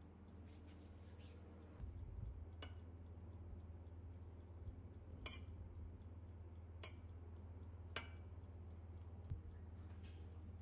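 Metal spoon clinking lightly against a stainless steel saucepan about five times while butter is stirred in it, over a faint steady low hum.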